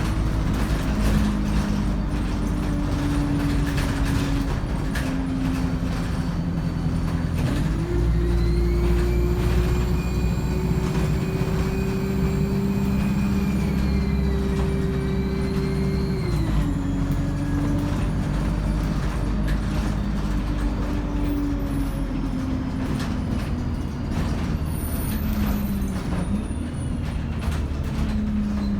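ADL Enviro 200 single-decker bus with a three-speed Voith automatic gearbox running under way. Its diesel engine drones steadily. About eight seconds in the revs step up and a high turbo whine rises and holds, then both fall away around sixteen seconds in.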